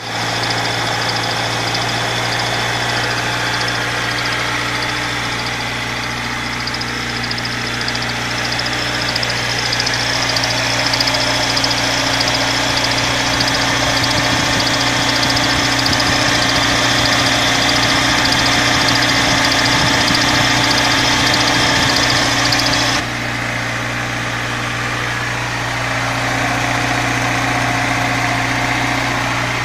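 Audi 80 2.0 16v four-cylinder engine idling steadily, with an extraneous noise being tracked down by running it with and without the power-steering belt. About three-quarters of the way through, the sound changes abruptly and the high whining tones drop away.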